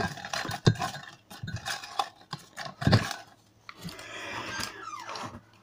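Handling noises: several knocks and clatters, then rustling as a paper lot is pulled out and unfolded about four seconds in.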